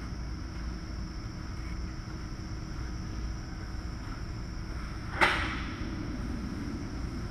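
Steady low hum and rumble of background machinery, with one sharp knock about five seconds in.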